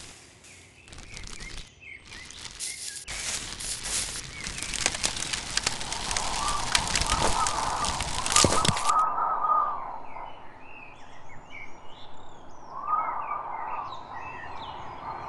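A dense rustling, crackling noise full of sharp ticks for about the first nine seconds, cutting off suddenly, with birds chirping and warbling through it and on after it.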